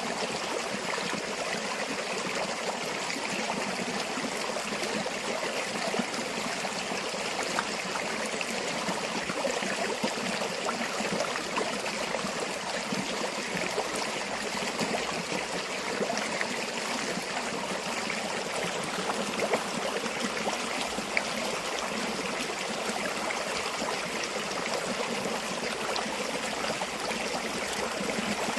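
River or stream water flowing steadily over stones, a continuous rushing and trickling with small splashes.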